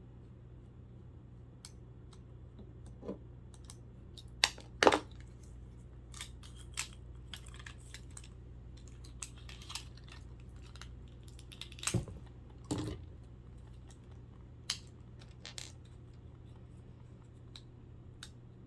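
Scattered clicks, taps and small knocks of plastic clock-radio parts being handled and pried apart during a teardown, with louder clatters about four and a half seconds in and again about twelve seconds in.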